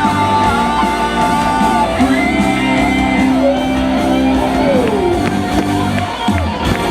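Live rock band playing at full volume, led by electric guitar with long held notes and a downward bend about five seconds in.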